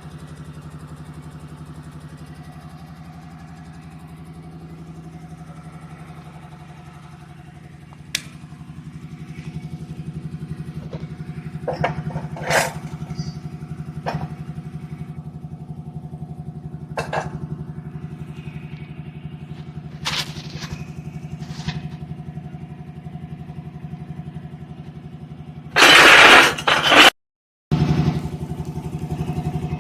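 Engine-driven air compressor running steadily, with a few sharp knocks scattered through. Near the end a loud rushing burst lasts about a second and cuts off abruptly.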